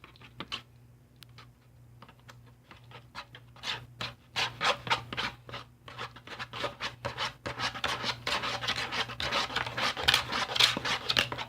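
Plastic knife scraping and stirring against the inside of a plastic bowl while mixing a thick body-wash-and-shampoo slime: quick, repeated scrapes, a loud noise, sparse at first and growing louder and denser from about four seconds in.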